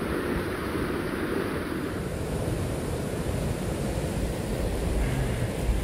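Storm wind blowing across the microphone: a steady rushing noise with a fluctuating low rumble.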